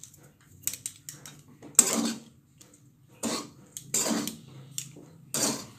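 Spatula scraping against the pan while thick semolina upma is stirred, in about four strokes roughly a second apart.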